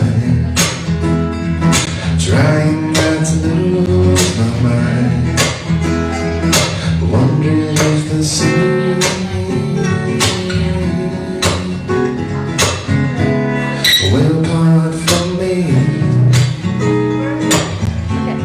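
Acoustic guitar strummed in a steady rhythm, with a man singing over it.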